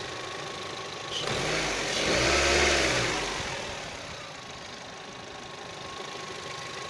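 Freshly overhauled engine, about 150 km after its rebuild, idling. About a second in it is revved once, rising to a peak and falling back to a steady idle.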